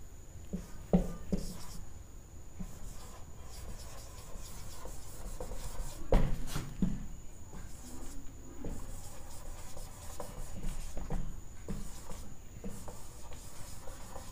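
Marker pen squeaking and scratching on a whiteboard in short, uneven strokes as a sentence is handwritten, with a sharper tap about six seconds in.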